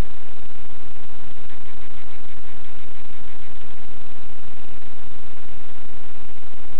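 Loud, steady static hiss with a faint buzz running through it and no change in level: electronic noise from the recording device.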